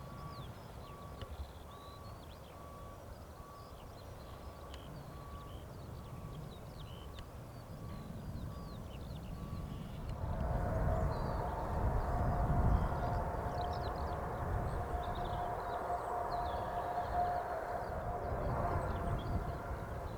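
Birds chirping over a low distant rumble, with a steady beep repeating about every two-thirds of a second. About ten seconds in, a Boeing 747-400 freighter's four jet engines take over, running with a steady whine.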